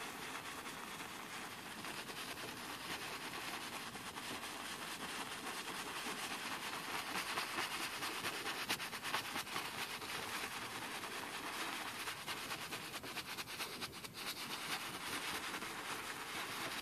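A wide paintbrush scrubbing against stretched canvas in circular strokes: a steady, scratchy bristle rubbing that keeps going with small dips. It is the sound of wet paint being blended soft with the top bristles of the brush.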